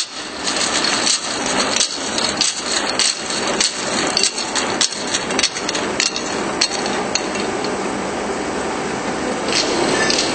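Automatic rotary bottle-labelling machine running, with a steady mechanical clatter and regular sharp clacks a little under twice a second; after about seven seconds the clacks thin out and the steady running noise carries on.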